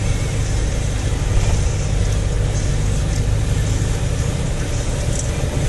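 Car driving through floodwater: the engine runs with a steady low drone under a constant hiss of water washing against the car.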